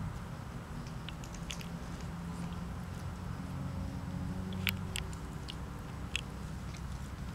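Scattered small clicks and smacking sounds from cats over a steady low hum, the sharpest about five and six seconds in.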